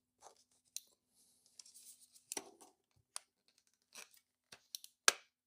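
Light plastic handling sounds as a push-button switch is worked into a dash switch housing: faint scrapes and rustles with scattered small clicks and knocks, and a sharper click about five seconds in.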